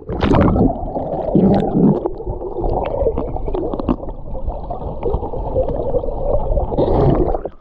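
Muffled underwater sound of a flowing creek: a splash as the camera goes under, then low rushing and gurgling water, with scattered clicks and knocks as stones on the creek bed are moved by hand.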